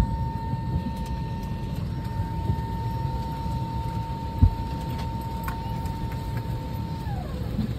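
Steady low rumble of a vehicle heard from inside, with a thin steady whine that drops in pitch about seven seconds in, and one dull thump midway.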